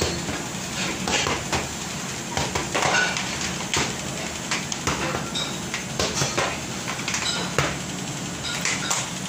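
Floor squeegee being pushed across a tiled floor, with irregular knocks and clatter as it works. A steady low hum runs underneath.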